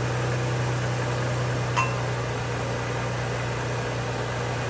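Supercharged Toyota 3.4 L 5VZ-FE V6 running steadily with an even hum, just after its first start following cylinder-head and head-gasket replacement. One short clink about two seconds in.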